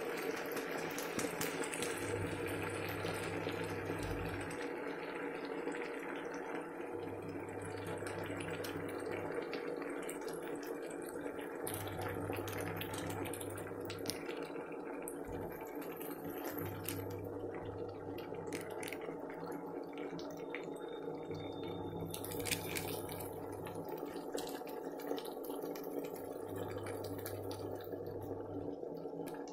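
Spices frying in hot oil in an iron kadai over a gas flame: a steady sizzle, with light scrapes and clicks from a metal spatula.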